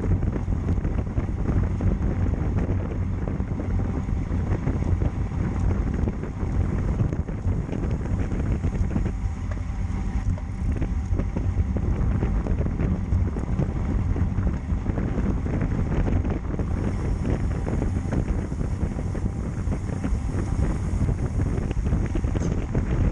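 Wind buffeting a bike-mounted camera's microphone while cycling at speed: a steady low rumble.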